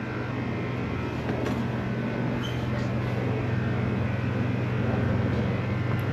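An engine running steadily at idle, a low even drone with a fast regular pulse that grows slightly louder.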